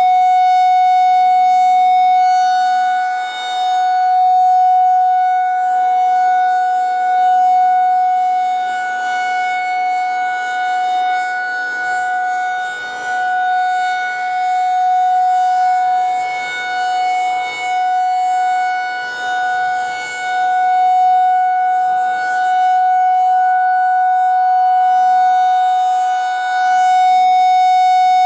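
Federal Signal 2001 electromechanical rotating siren sounding a steady single tone at full speed during a routine test. Its loudness swells and fades every few seconds as the siren turns.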